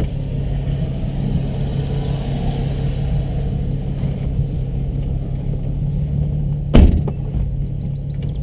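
Car engine running at low speed with a steady low rumble. A single short, loud bang comes near the end.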